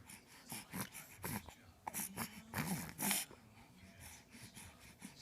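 A quick run of short, noisy sniffs and snorting breaths for about three seconds, the loudest near the end of the run, then quieter breathing: the build-up to a sneeze.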